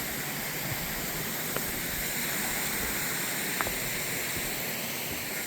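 Steady rush of water from a small waterfall on a gorge stream, with a couple of faint clicks about one and a half and three and a half seconds in.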